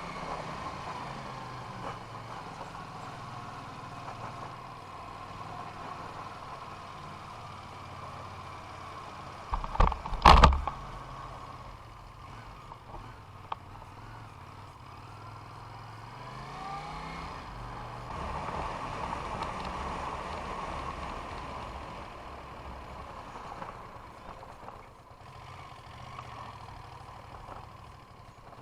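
A motor vehicle's engine running steadily with road noise, its pitch rising briefly about two-thirds of the way in. A loud double knock about ten seconds in is the loudest sound.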